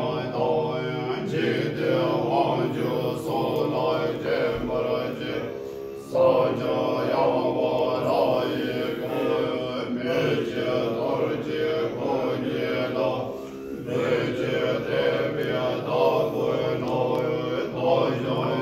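Tibetan Buddhist monks chanting a mantra together in low voices, with two short breaks for breath, one about six seconds in and one past the middle.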